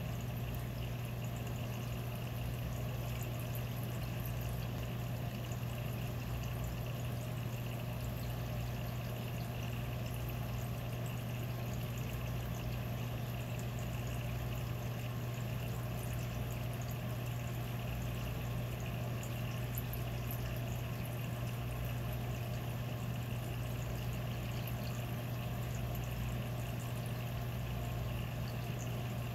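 Reef aquarium's water circulation running steadily: an even rush of moving, trickling water over a constant low pump hum.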